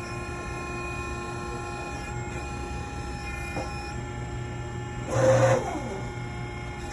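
Heavy-duty semi-truck tire changing machine running with a steady mechanical hum of several held tones, broken about five seconds in by a brief louder rush of noise.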